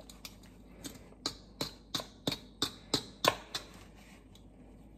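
A small kitchen knife scraping at a ball of ice in quick, short strokes, about nine of them at roughly three a second, stopping near the end.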